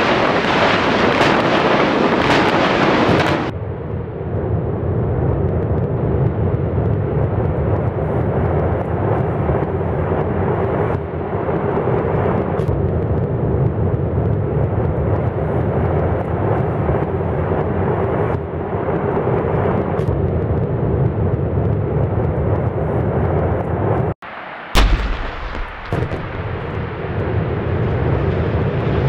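Explosive demolition charges firing in a rapid volley as a high-rise tower is imploded, followed by a long, loud rumble of the collapse. Near the end the rumble cuts off and a single sharp bang is followed by a steady rushing noise.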